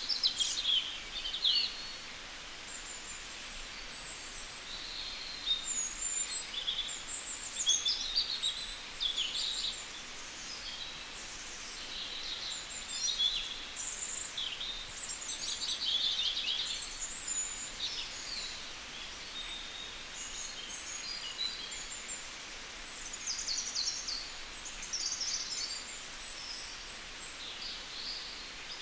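Songbirds singing, a steady scatter of short high chirps and quick trills over a faint outdoor hiss.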